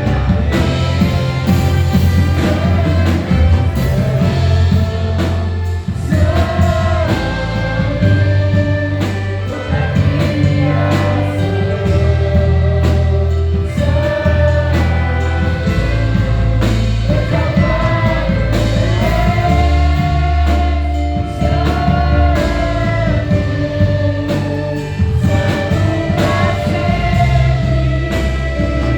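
Gospel worship music played live, with singing voices over a steady bass line and drums.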